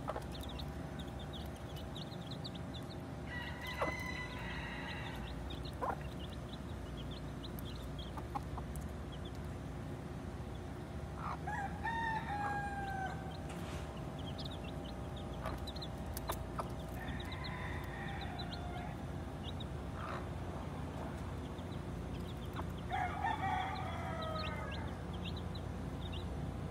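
A mother hen clucking in four short bouts, while her chicks keep up a constant high peeping. A steady low hum runs underneath.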